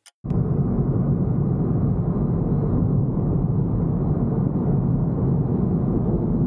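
Steady low rumble of road and engine noise inside a moving car's cabin, cutting in suddenly just after the start.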